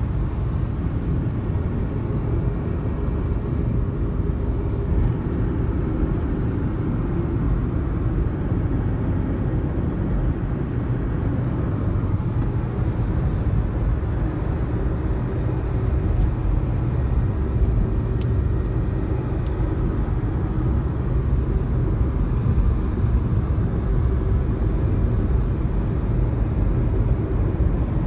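Steady low road and engine rumble heard from inside a moving vehicle as it drives along.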